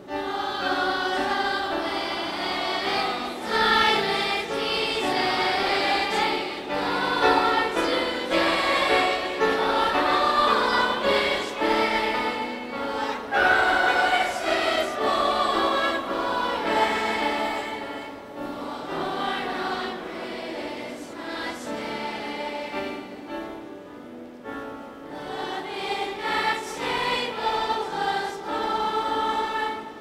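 Children's choir singing together. About two-thirds of the way through the singing softens for several seconds, then swells again.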